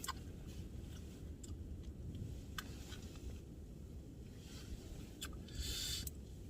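Low steady rumble of strong wind outside the tent, heard from inside, with scattered light clicks and a short rustle near the end.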